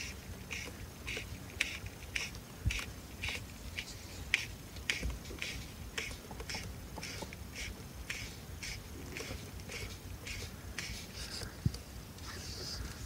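Fly line being stripped in by hand through the rod guides, a short quick rasp with each pull, about two pulls a second, in an even rhythm.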